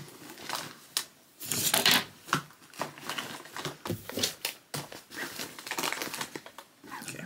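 Toiletries and their plastic packaging rustling, crinkling and knocking together as they are packed into a backpack, in irregular bursts.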